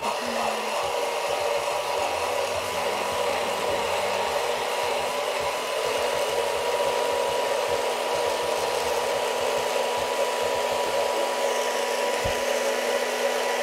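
Oster hand blender running continuously at one steady pitch, its blade puréeing roasted tomatoes, onion, garlic and habanero in a plastic beaker into a coarse salsa.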